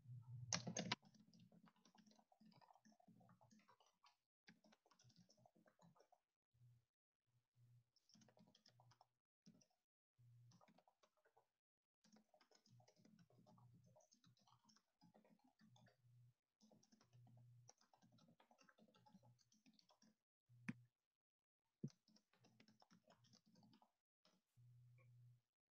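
Faint computer-keyboard typing and clicks coming and going in short stretches, with a louder click about a second in and two sharp clicks near the end, over patches of low hum.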